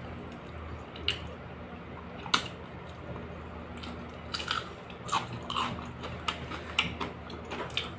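Close-up biting and chewing of crispy marinated kalaso (lizardfish), eaten by hand, with short crunches and mouth clicks. The crunches are scattered at first and come thicker in the second half.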